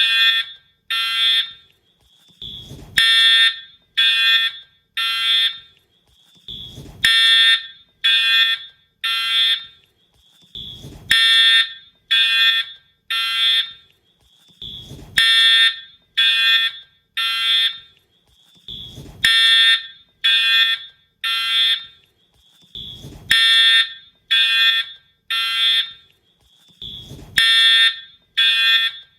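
Wheelock-style fire alarm horn/strobe sounding the temporal-3 evacuation pattern: three harsh half-second blasts a second apart, then a pause, repeating about every four seconds. A brief low thump comes just before each set of three.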